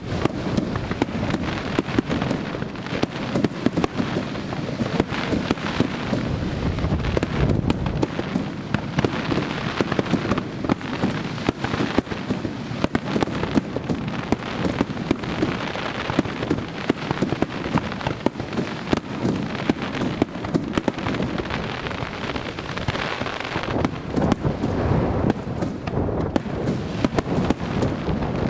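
Fireworks display in full barrage: many shells bursting in quick succession, sharp bangs overlapping with crackling.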